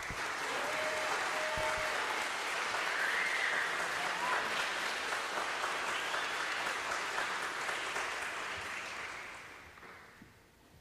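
Audience applauding, starting suddenly as the song ends, with a few voices calling out over it, then dying away near the end.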